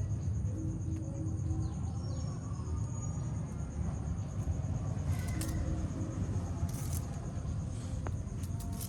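Outdoor ambience: steady high insect chirring over a constant low rumble, with a few faint chirps and clicks.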